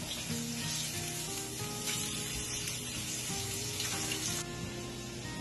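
Spiced fish fillets sizzling steadily as they sear in hot olive oil in a skillet over a high flame, while being turned with metal tongs. Soft background music underneath.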